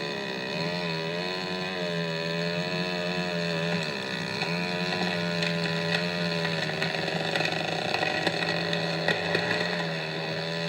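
Chainsaw (power saw) cutting through a fallen tree trunk, its engine pitch wavering up and down as it bites into the wood, over a steady lower drone. Scattered clicks come in the second half.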